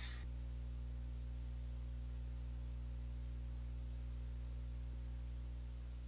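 Steady low electrical hum with a faint even hiss, unchanging throughout; the swab's wiping on the board is not heard.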